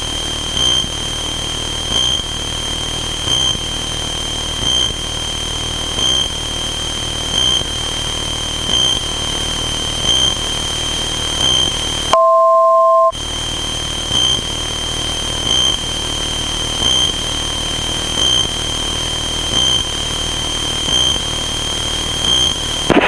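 Cessna 162 Skycatcher's engine and propeller noise in the cabin in flight: a steady hiss with a high whine, swelling a little under every one and a half seconds. About 12 seconds in, it is cut for under a second by a short two-tone beep.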